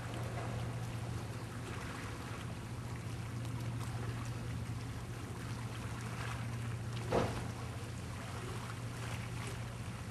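Steady outdoor background noise with a low, constant hum underneath, broken by one short knock about seven seconds in.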